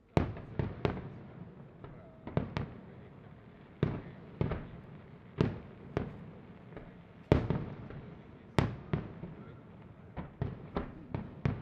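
Aerial firework shells bursting in quick, uneven succession: about twenty sharp bangs, each trailing off in a short rumble, with the loudest a little past halfway.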